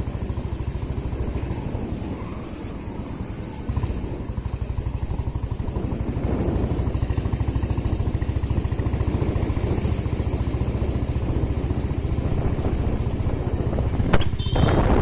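Motorcycle engine running under way, its exhaust beating in a steady rapid rhythm, getting louder about halfway through. A sharp knock comes near the end.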